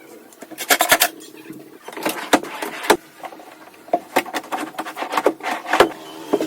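Irregular wooden knocks and clunks from plywood drawer parts being handled and fitted, a dozen or so sharp strikes at uneven spacing.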